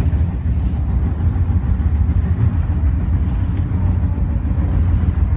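Commuter train rolling along the track at speed: a steady, loud low rumble of wheels on rails and running gear.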